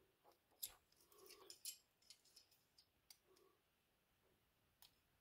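Near silence with a few faint, scattered clicks and scrapes: a small metal tool prying at a part inside a diecast toy car body.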